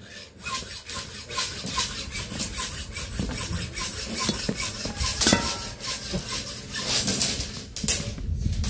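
Hacksaw cutting through a steel reinforcing rod, rasping back and forth at about three strokes a second.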